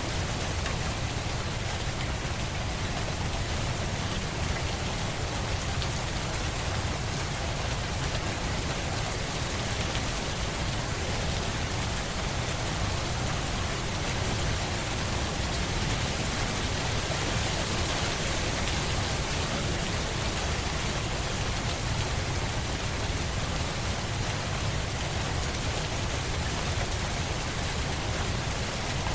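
Steady rain falling, an even hiss of drops with no breaks or single events.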